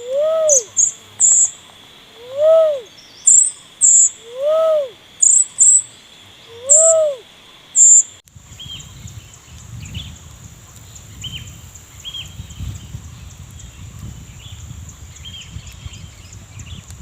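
A low hooting bird call that rises and falls in pitch, repeated five times about once a second, with short high chirps between the hoots. About eight seconds in it cuts off, and a steady high insect drone with faint scattered bird chirps follows.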